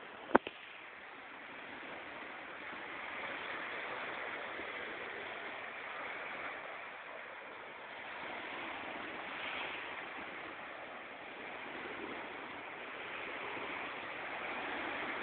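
Steady rushing wash of sea surf on the beach, swelling and easing every few seconds. A single sharp click sounds about half a second in.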